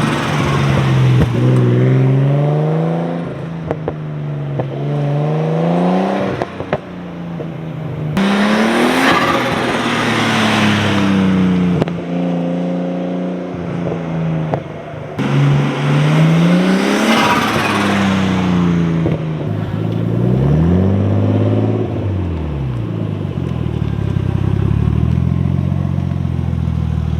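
R32 Nissan Skyline's turbocharged engine pulling hard several times, its pitch climbing and dropping back between pulls, then winding down near the end. Turbo flutter is heard on lift-off, set up by a homemade aluminium-can gasket blocking off the turbo's bypass.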